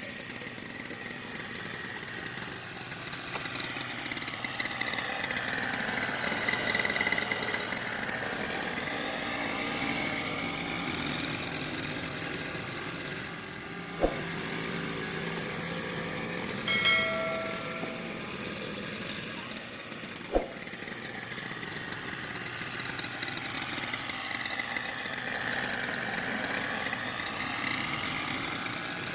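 A motor running steadily, its tone sweeping slowly up and down as it moves. Two sharp clicks come about six seconds apart near the middle, with a short beep-like tone between them.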